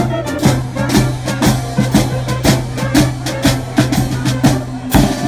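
Marching brass band playing, with a drum beating about twice a second over a low brass note held underneath.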